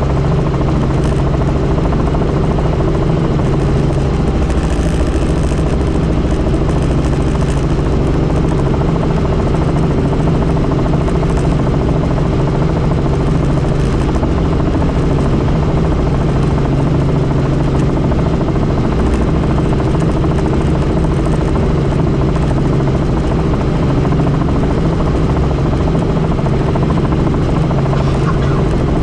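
Helicopter in flight: a loud, steady drone of engine and rotor with a constant low hum and rumble.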